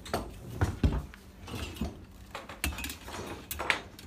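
Irregular metallic knocks and clinks of copper pipe and hand pipe benders being handled and set up on workbenches.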